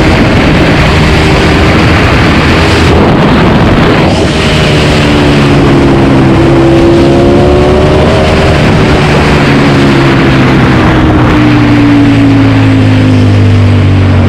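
Ducati Panigale V4 engine through an Akrapovic GP exhaust, heard from the rider's seat at speed in third gear, under heavy wind noise. The revs dip briefly about three seconds in, pick up slightly, then fall steadily over the second half as the bike slows.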